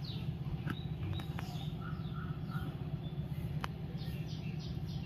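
Small birds chirping over and over in short falling calls, over a steady low rumble of background noise, with a few faint clicks.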